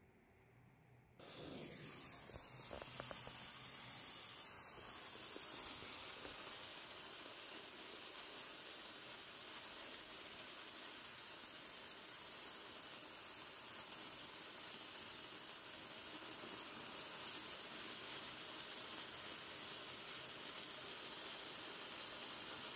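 A hand-held sparkler catches about a second in and burns with a steady hissing fizz.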